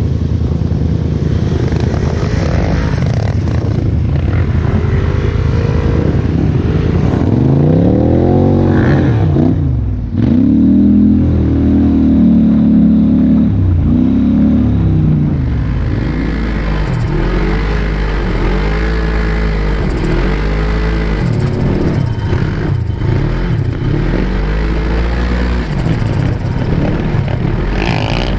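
Sport quad (ATV) engine heard from on board, revving up and down as it is ridden. About ten seconds in the sound dips suddenly, the revs are then held high for several seconds, and after that they rise and fall roughly once a second.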